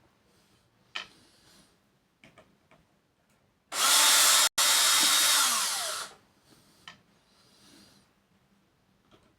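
Cordless drill-driver run in reverse to back out small self-tapping screws: one spin of about two and a half seconds, cut for an instant near its start, that falls in pitch as the motor winds down. Faint clicks and knocks of handling the parts come before and after it.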